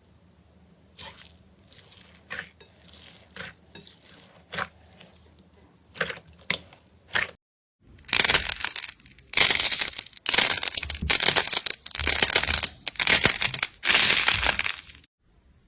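Slime being squeezed and pressed, first with scattered small crackles and pops, then, after a short break, a run of loud crunching squeezes, as of crunchy slime packed with beads.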